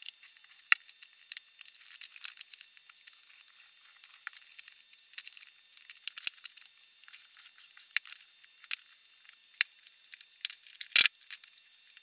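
Scattered light clicks and taps of small wooden strips being handled and set in place on a wooden workbench, with one louder knock about eleven seconds in.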